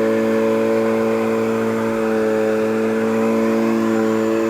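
Electrolux Twin Turbo vacuum cleaner running steadily, its motor giving a steady whine made of several held tones over a rushing of air. It runs well, sounding like a machine in good condition.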